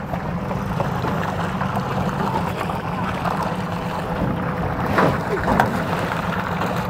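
Boat engine running steadily, with a few sharp knocks and clatters about five seconds in.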